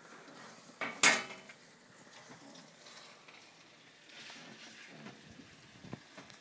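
Handheld rustling and handling noise, with one sharp knock about a second in that rings briefly.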